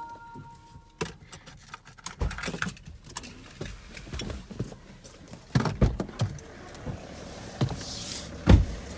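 Irregular clicks, rattles and knocks of a phone being handled inside a car, with the loudest thump near the end. A short steady beep sounds in the first second.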